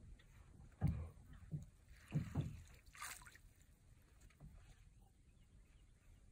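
A landing net worked through the water beside a johnboat: a few low, dull knocks about a second and two seconds in and a short splashy hiss near three seconds, then faint water sounds.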